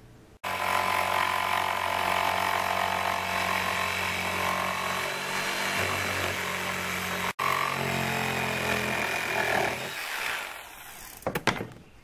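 Corded electric jigsaw running steadily as it cuts a circular hole in plywood, with a brief break in the middle; the motor winds down about ten seconds in, followed by a few sharp clicks.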